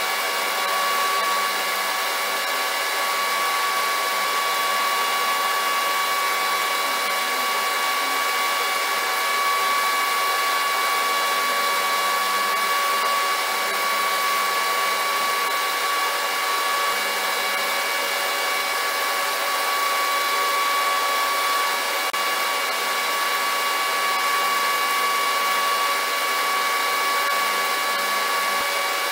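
A small electric motor running steadily: a constant whine over an airy hiss, neither rising nor falling.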